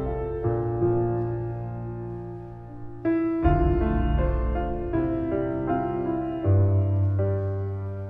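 Background music: slow piano music with held low bass notes, and a new chord about every three seconds.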